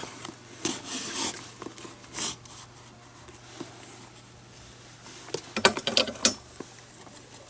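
Glove lace being pulled through the lace holes of a leather baseball glove while the glove is handled: scattered short rubbing and scraping strokes, with a quick run of them about three quarters of the way through.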